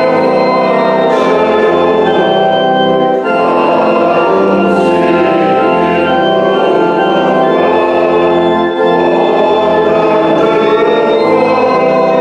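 Organ playing a hymn in slow, held chords that change every second or two, with a short break about three seconds in and again near nine seconds.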